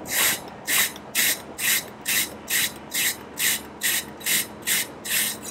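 Cut end of a carbon arrow shaft being squared on an abrasive arrow squaring tool: a rasping rub repeated evenly about twice a second, a dozen strokes.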